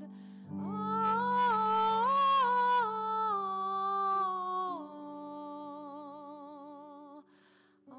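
Taizé chant sung without words: voices humming a slow line of held notes that climbs and then settles back down, over a steady low sustained note. The voices pause briefly near the end before the singing resumes.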